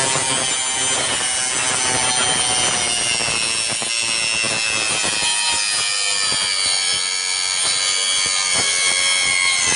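Homemade circular saw, a high-speed 775 DC motor driving a 4-inch wood blade, cutting wood: a steady high whine over cutting noise, its pitch falling slowly.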